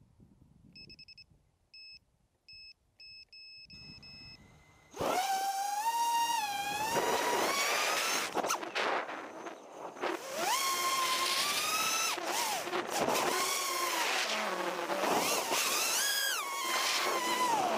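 FPV quadcopter: about six short high electronic beeps, the last one longer, as it arms, then about five seconds in its brushless motors and propellers spin up into a loud whine that climbs and falls in pitch with the throttle, with a few brief dips when the throttle is cut.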